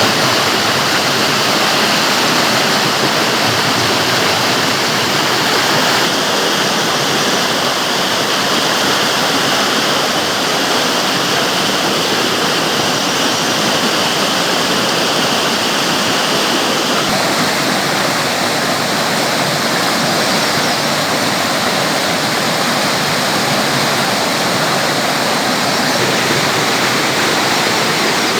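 Clear mountain stream rushing over rocks in a valley, a steady, loud, even rush of water whose tone shifts slightly a few times.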